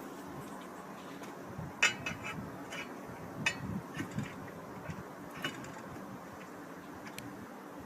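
A handful of light clinks and taps, scattered irregularly, the sharpest about two seconds in, over a steady background hiss.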